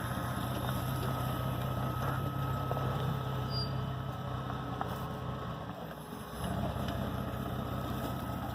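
A vehicle engine running steadily at low speed. It eases off about six seconds in, then picks up again.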